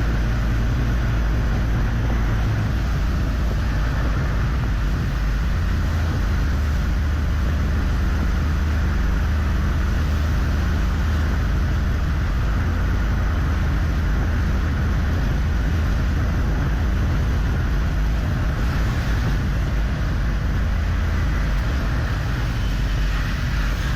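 Steady road noise from a vehicle travelling along a highway: a continuous low engine and tyre drone with an even hiss over it.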